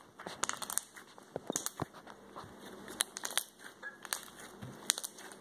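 Homemade borax slime being stretched and squeezed by hand, giving off a string of small, irregular crackles and pops as air bubbles in it burst.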